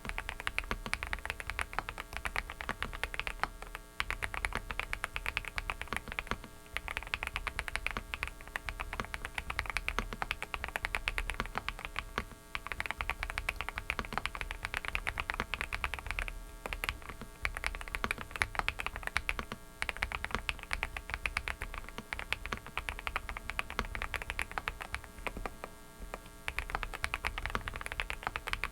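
Typing on a Dareu mechanical keyboard: rapid runs of keystrokes with brief pauses every few seconds, over a steady electrical hum and noise from a faulty microphone.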